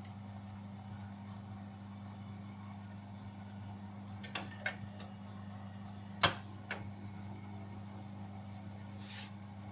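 Beko washing machine running with a steady low hum, with a few light clicks a little over four seconds in and one sharp knock about six seconds in.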